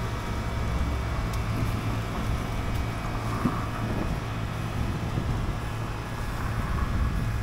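Steady low hum and rumble of street background noise, like traffic, with a few faint small knocks.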